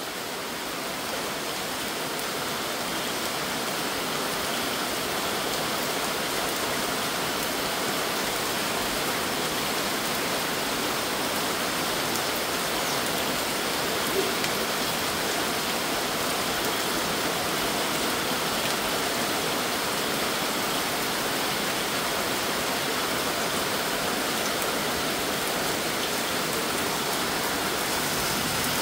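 Heavy rain pouring steadily onto a wet concrete yard and standing puddles.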